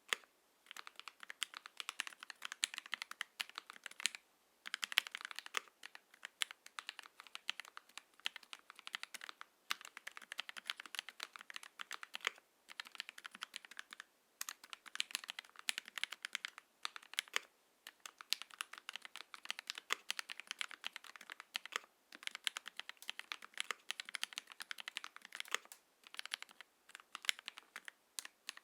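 Typing on an Ikki68 Aurora mechanical keyboard with lubed Gateron X linear switches, aluminium plate and GMK keycaps: quick runs of key presses, broken by brief pauses every few seconds.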